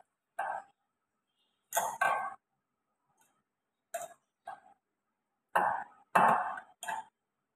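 A string of short, irregular knocks and clatters from hands handling kitchen things, about eight in all, with the loudest cluster near the end.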